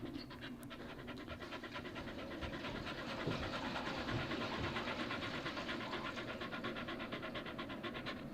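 Shiba Inu dog panting in a rapid, even rhythm, growing a little louder over the first few seconds.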